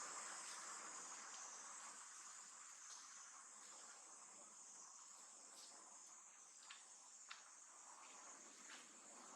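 Faint, steady, high-pitched insect chorus, crickets or cicadas chirring together, with a few faint clicks in the second half.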